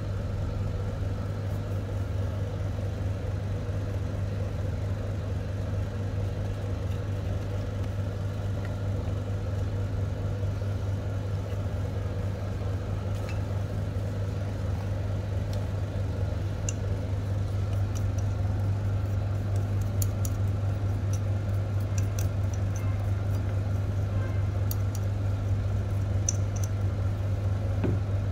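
Steady low machine hum, with light clicks and taps of small metal parts being handled in the second half.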